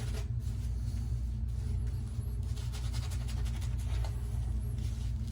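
Soft synthetic shaving brush working lather onto a face in irregular swishing strokes, over a steady low hum.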